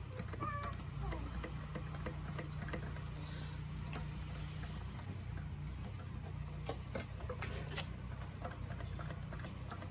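Scattered light clicks and taps of small metal screws and hand tools being handled while a pressure washer pump's mounting screws are taken out by hand, over a steady low hum.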